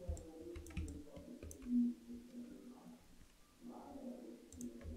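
Faint, scattered sharp clicks at a computer desk, from a mouse and keyboard, over a low hum that comes and goes and is loudest a little under two seconds in.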